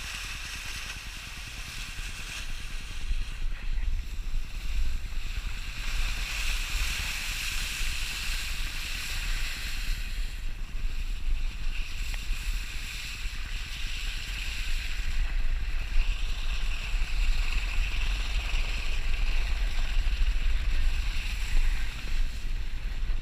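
Wind buffeting the microphone of an action camera mounted outside a moving vehicle, a steady rush and low rumble with the road noise of driving on snow. It grows louder about two to three seconds in as the vehicle picks up speed.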